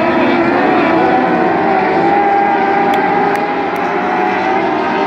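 Pack of dwarf race cars running at speed, several engines at high revs overlapping, their pitches wavering slightly as they race.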